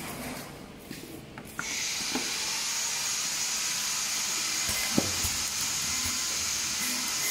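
Semi-automatic box tape-wrapping machine running: a few light clicks, then about one and a half seconds in a steady hiss starts and holds. A single sharp click comes about five seconds in.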